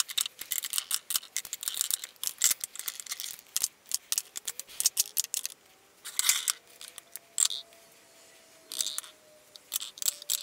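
Lipstick tubes clicking and clattering against a clear acrylic lipstick organizer as they are picked up and set into its slots: a run of small sharp taps in uneven clusters, with a brief lull about three-quarters of the way through.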